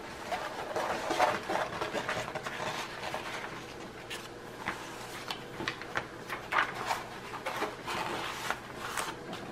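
Rustling and crinkling of a diamond painting canvas's paper cover sheet as hands lift it off the glued canvas and smooth it flat again, with many small irregular crackles.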